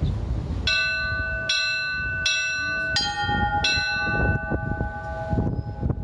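Russian Orthodox church bells rung in the Lavra-style peal (Lavrsky zvon). Strikes come roughly every three-quarters of a second, and each bell's tones ring on and overlap the next.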